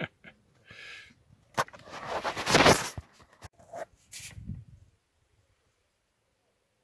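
Handling noise close to the microphone as the camera is moved: clicks and knocks, a scrape-like rush loudest about two to three seconds in, and a last knock near four seconds, then it goes quiet.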